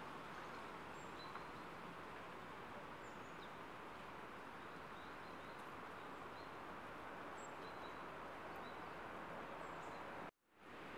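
Woodland ambience: a steady soft hiss with faint, short bird chirps scattered through it. The sound cuts out abruptly near the end and fades back in.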